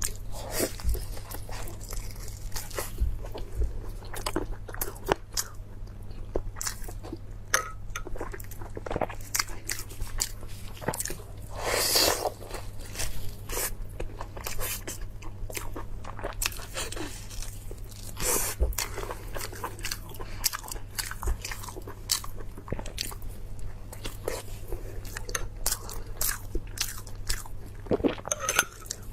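A person eating: repeated crunchy bites and chewing, a series of short crackling crunches with a longer, louder crunch about twelve seconds in.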